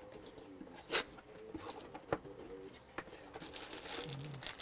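Cardboard retail box being opened by hand: a few sharp taps and clicks as the flaps are pulled open, with light handling rustle.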